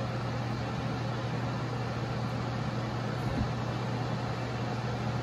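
A heater's fan running steadily: an even rushing noise with a constant low hum underneath.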